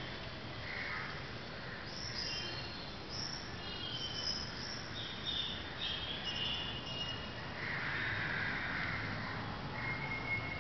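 Small birds chirping in short, high, scattered calls over a steady background hiss.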